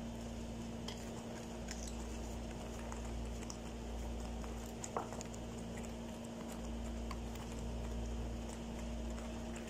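Thick creamy chicken filling simmering in a frying pan, bubbles popping now and then with faint clicks and one louder plop about five seconds in, over a steady low hum.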